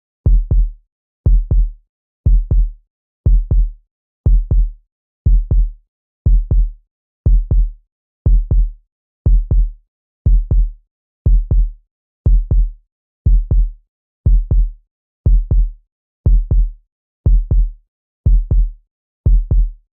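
Heartbeat sound effect: a double thump, lub-dub, repeating steadily about once a second, deep and even.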